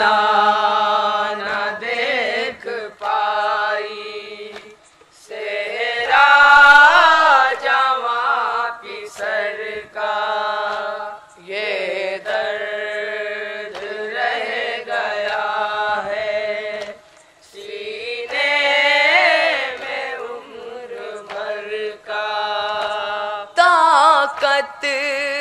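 A group of boys chanting an Urdu noha (Shia lament) together, unaccompanied and amplified through microphones, in long sung phrases broken by short pauses about every six seconds.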